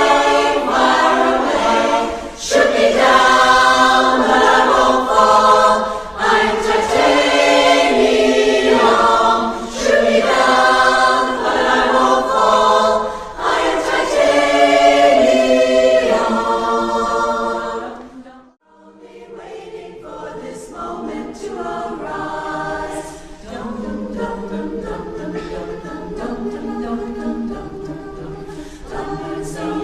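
Unaccompanied chorus singing in harmony. The loud passage fades out about two-thirds of the way through, followed by a brief pause, and then the chorus comes back in more softly.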